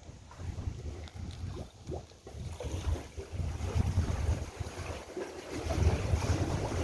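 Wind buffeting the microphone in uneven gusts that grow stronger about halfway through, over a faint wash of sea.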